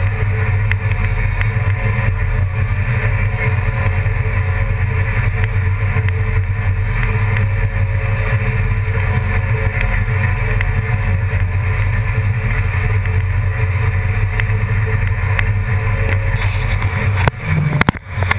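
An engine running steadily with a low drone, which breaks up and drops away shortly before the end.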